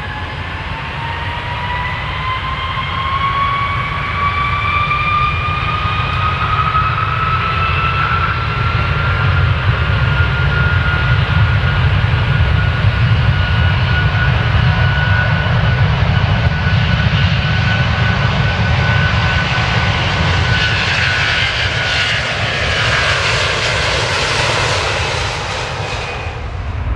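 Airplane engines during a takeoff. A whine rises in pitch over the first ten seconds, then holds steady over a deep, constant rumble. A rushing hiss builds near the end and cuts off suddenly.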